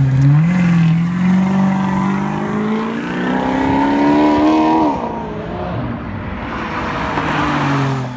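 Maserati GranTurismo V8 accelerating hard away, its engine pitch climbing steadily for about four seconds, dropping at an upshift, then running on at a lower pitch.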